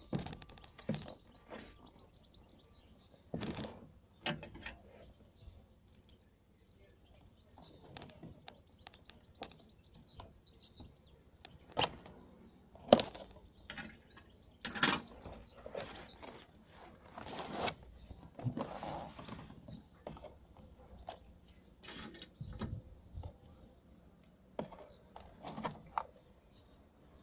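Cardboard drone box being handled and opened: irregular taps, knocks, scrapes and rustles of the box and its packaging. Birds chirp faintly in the background.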